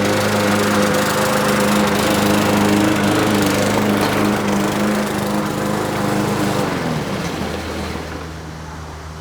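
Craftsman M210 self-propelled push mower's small engine running steadily, then about seven seconds in its pitch drops and it winds down, getting quieter toward the end.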